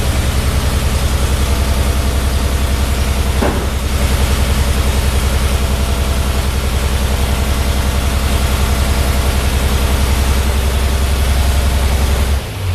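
Ford 8N tractor's flathead six-cylinder engine running steadily at idle with an even, rapid firing beat. It cuts off shortly before the end.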